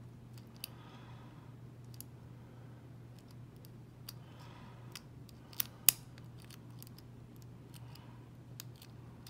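Lock pick and tension tool working the pin tumblers inside an old Corbin padlock: scattered small metallic clicks and light scraping, with two sharper clicks a little past halfway.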